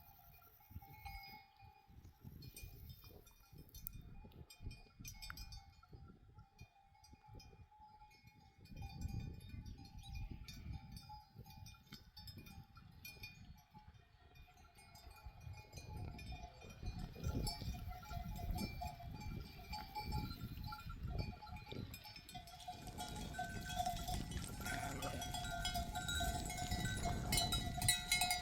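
Bells on a herd of sheep and goats clanking as the animals move, the ringing growing louder through the second half as the herd comes closer.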